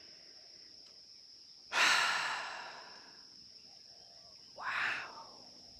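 A woman sighing: a long breath out about two seconds in that fades away over a second, then a shorter, softer puff of breath through pursed lips near the end.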